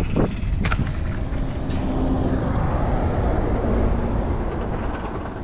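A motor vehicle passing on the road beside the ditch: a steady low rumble that swells and eases, with a faint hum. A couple of light knocks sound in the first second.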